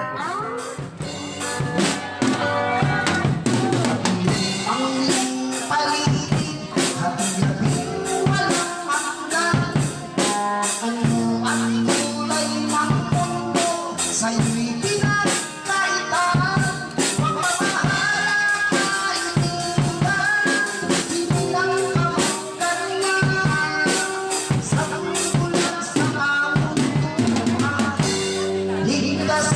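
Drum kit played live: a busy, steady beat of bass drum, snare and cymbal strokes, with a strummed guitar playing chords along with it.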